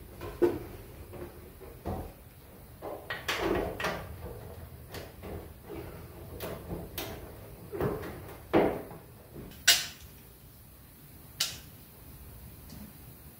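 Scattered knocks and clunks of objects being handled, a dozen or so, some with a short rattle; the loudest, a sharp knock, comes about ten seconds in.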